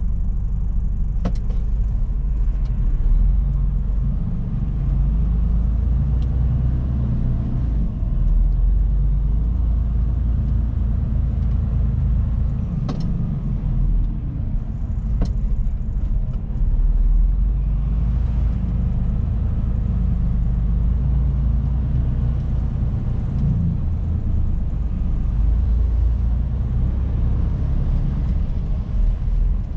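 Mercedes-Benz truck's diesel engine and road noise heard inside the cab while driving: a steady low rumble, with a few short clicks scattered through it.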